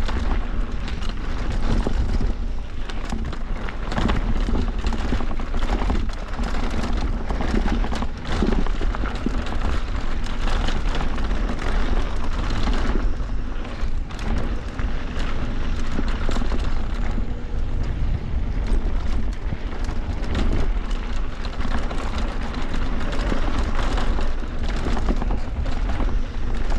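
Electric mountain bike descending a rough dirt trail: steady loud wind buffeting on the GoPro microphone and tyre rumble, broken by frequent sharp knocks and rattles from the bike over bumps.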